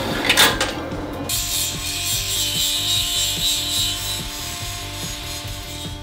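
A metal-cutting band saw cutting steel tube, then from about a second in an angle grinder grinding steel with a steady hiss that fades near the end, over background music.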